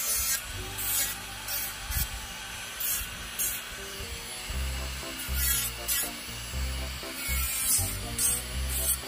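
Electric nail drill with a white cylindrical bit rasping over a bare natural fingernail in short, irregular strokes, about one or two a second, as the nail surface is smoothed after gel removal. Background music plays underneath.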